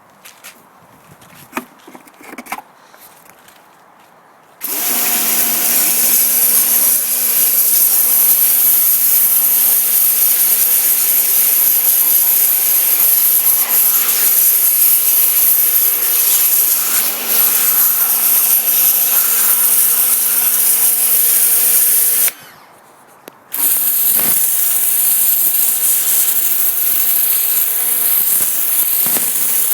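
Black & Decker PW 1300 TD electric pressure washer running with its lance spraying: a steady motor-pump hum under the hiss of the water jet. It starts after a few seconds of quiet broken by a few light clicks, cuts out for about a second past the middle, then starts again.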